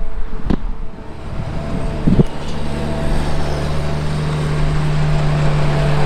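Engine of heavy farm machinery running steadily, a low even hum that settles onto one steady pitch about two seconds in, with a short click near the start.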